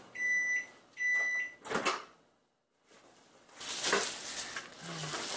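Microwave oven beeping twice, each a half-second steady high tone about a second apart, signalling that its four-minute cooking cycle has ended. After a brief silence, rustling handling noise follows.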